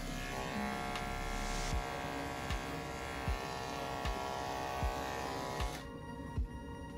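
Electric pet grooming clipper running with a steady buzzing hum, switched off about six seconds in. Background music with a steady beat plays underneath.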